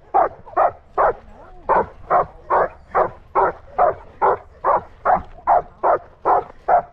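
A dog barking steadily and rhythmically, about two to three loud barks a second.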